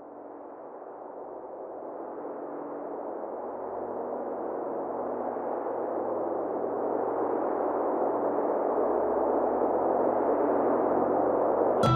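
A hazy, mid-pitched soundtrack drone that swells steadily louder, cut off abruptly near the end as plucked-string music comes in.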